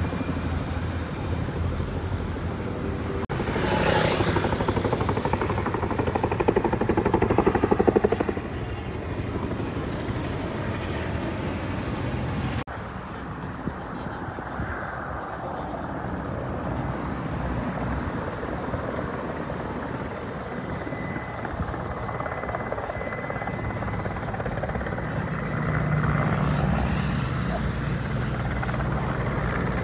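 Firefighting helicopters running in the distance: a steady low rumble of rotors and engines, with a louder swell of noise from about four to eight seconds in. The sound changes abruptly about thirteen seconds in.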